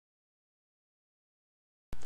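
Dead silence: the sound track drops out completely, and a steady low hum comes back in only at the very end.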